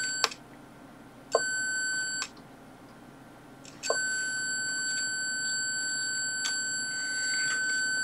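Electronic buzzer of a light-alarm-with-latch circuit sounding one steady high tone. It cuts out just after the start, sounds again for about a second, stops, then comes back about four seconds in and stays on, with a click at each switch-on. It is switching on and off instead of staying latched on, which is not how the circuit is meant to behave.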